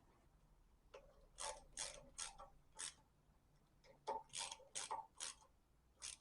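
Socket ratchet wrench being worked in short swings to tighten the thermostat housing bolts: four strokes, a pause, then five more.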